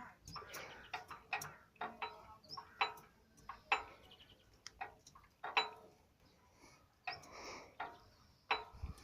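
Kentavr 1010E walk-behind tractor with its R190 single-cylinder diesel, giving a string of sharp, irregular knocks about two a second. This is the unexplained knock the owner wants identified.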